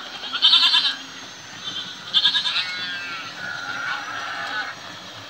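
Recorded goat and sheep bleats played through the small speakers of sound-equipped model railway wagons. There are three separate calls: a loud one about half a second in, another about two seconds in that falls in pitch, and a softer one about three and a half seconds in, all over a low steady hum.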